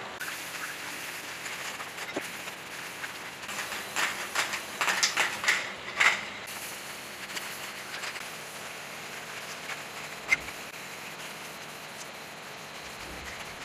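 Spray painting: short hisses and clicks as paint is sprayed onto the engine parts, bunched together a few seconds in, with a single click later, over a steady low hiss.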